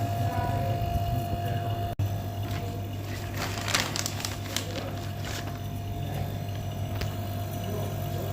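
Steady low electrical hum, with a quick run of clattering metal clicks and knocks from tools being handled in the middle and one more tick near the end.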